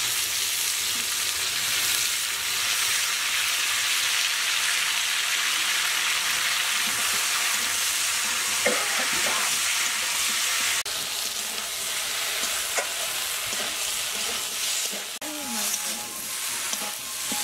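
Potatoes, pumpkin stems and ginger-cumin paste sizzling in oil in an aluminium wok while being sautéed down (kashano), with a spatula stirring and scraping through the pan and a couple of sharp clicks against the metal. The sizzle is steady, easing slightly about eleven seconds in.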